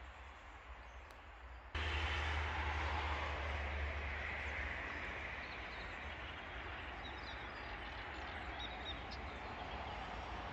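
Outdoor ambience: a steady noisy rumble that starts abruptly about two seconds in and slowly fades, with a few faint bird chirps.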